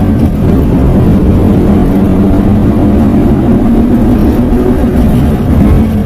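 A car driving with a steady, loud, low drone from a worn wheel bearing.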